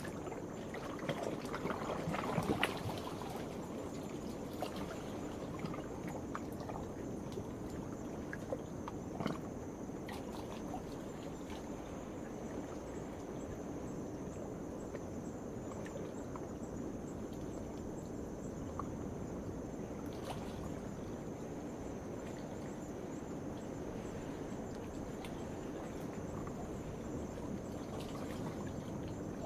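Night insects keep up a steady high-pitched chorus over the continuous wash of sea waves, with a few short clicks near the start.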